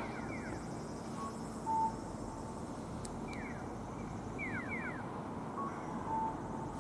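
Station platform ambience: a steady low hum under a two-tone electronic chime, a short higher note then a longer lower one, heard twice about four and a half seconds apart. Groups of three or four quick falling chirps come in between.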